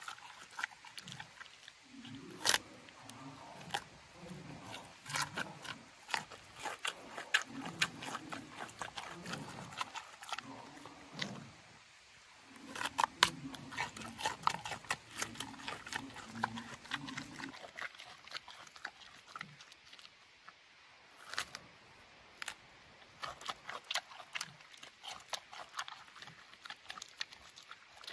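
Giant panda chewing soft food with its mouth open: a running series of wet smacks and sharp clicks, some louder single smacks standing out, thinning near the end.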